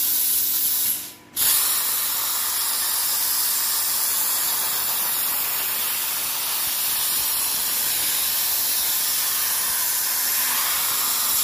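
Air plasma cutter torch on a CNC table cutting steel box section: a loud steady hiss from the plasma arc and its air stream. About a second in the hiss breaks off for a moment and comes back sharply.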